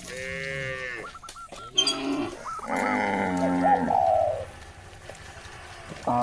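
Cattle mooing: a call lasting about a second at the start, a longer moo about three to four seconds in, and another starting at the very end. There is a sharp knock about two seconds in.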